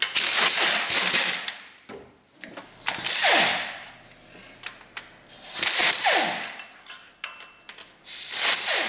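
Pneumatic air ratchet spinning out idler pulley bolts in four bursts, each winding down with a falling whine as the trigger is released, with small clicks between bursts.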